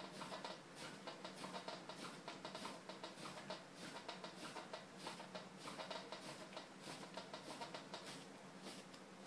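Spiral wedging of clay by hand on a wooden wedging table: the lump is pushed and rolled over on the wood in a steady rhythm, each stroke a soft pat about twice a second.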